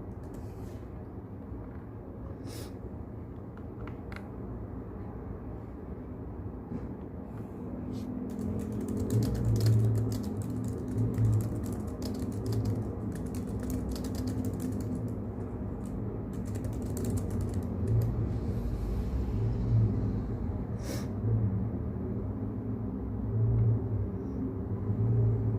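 Keyboard typing in quick runs of key clicks, densest through the middle, over a steady low brown-noise rumble.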